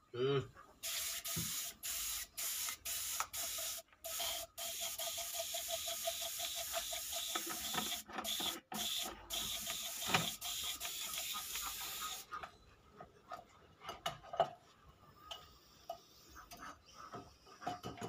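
Compressed-air paint spray gun hissing in a string of short and longer bursts, broken by many brief gaps, as it is flushed through to clean it after painting. It stops about twelve seconds in, followed by a few faint knocks as the gun and hose are handled.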